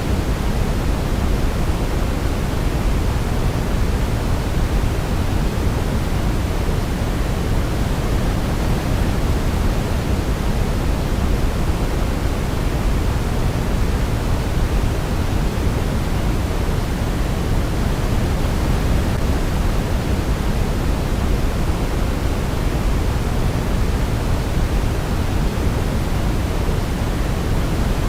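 Steady synthetic sleep noise, deep and even, with most of its weight in the low end, like a soft low rush; no melody is heard.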